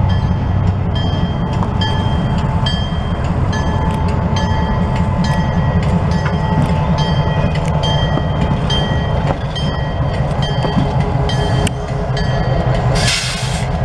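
Norfolk Southern switcher locomotive 2380 rolling slowly, its diesel engine running steadily, with its bell ringing at an even pace of just under two strokes a second. A short burst of air hiss comes near the end.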